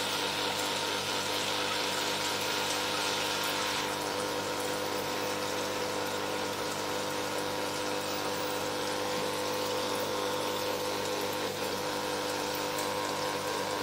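Koi tank's filter pump running, its return water splashing and churning steadily at the surface, with a steady pump hum under the rush of water.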